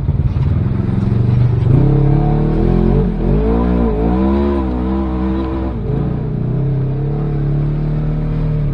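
Side-by-side UTV engine running while driving a rough dirt trail, heard from inside the cab. The revs rise and fall several times in the middle, then settle back to a steady drone.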